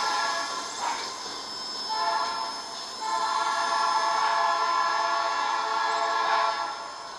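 Multi-note air horn of a Brandt hi-rail truck pulling railcars, sounding in blasts: one ends shortly after the start, a short blast follows about two seconds in, then a long blast from about three seconds that stops shortly before the end. The short-then-long ending matches the standard grade-crossing horn signal.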